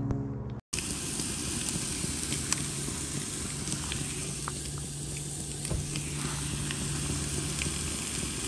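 Halibut fillet and vegetable fries sizzling in hot cast-iron pans on a camp stove: a dense, steady frying hiss with small pops and crackles. It starts abruptly just under a second in.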